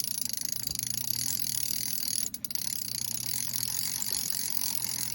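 Spinning reel being cranked, a Lucana Comodo 5000, its gears and bail giving a fast, even ticking.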